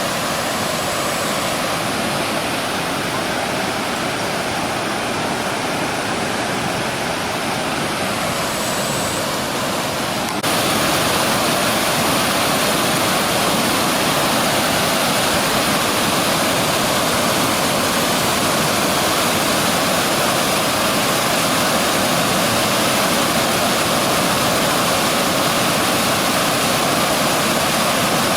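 Fast-flowing floodwater rushing steadily over a flooded road. The sound jumps suddenly to a louder level about ten seconds in.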